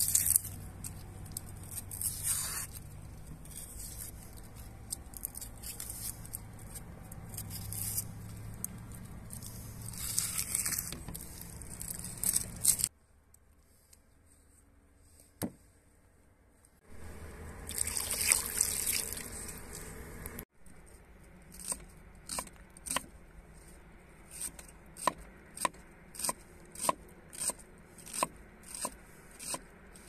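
Kitchen knife cutting and scraping a red onion on a wooden log-slice board, with small knocks and rustling of onion skin. After a short near-silent pause and a brief rustling stretch, the knife chops the onion on the wood in steady strokes, about two a second.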